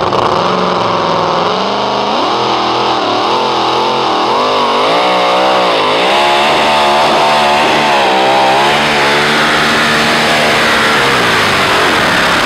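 Supercharged pickup truck pulling engine at full throttle, hauling a weight-transfer sled down a pulling track. It runs steadily at first, then opens up about two seconds in, its pitch surging up and down repeatedly through the pull.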